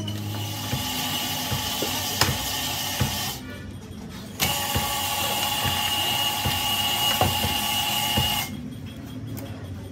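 Portable cylinder boring machine's electric motor running with a steady high whine while the boring bar turns in the engine block's cylinder, with scattered ticks. It stops about three and a half seconds in, starts again a second later and stops near the end.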